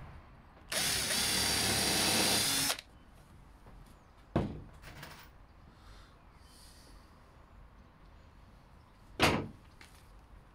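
Cordless drill running steadily for about two seconds, drilling into a pine board. Two single knocks follow a few seconds apart.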